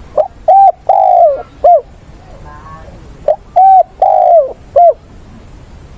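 Spotted dove cooing: two four-note phrases about three seconds apart. Each phrase has a short note, a held note, a longer note that falls slightly at its end, and a short closing note.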